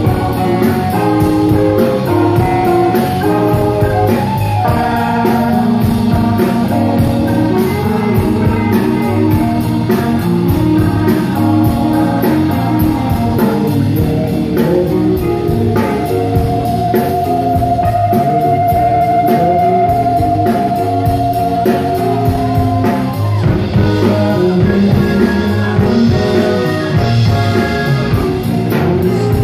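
A live rock band playing a slow blues-rock number loud: electric guitar, bass guitar and drum kit. A single long note is held for several seconds about halfway through.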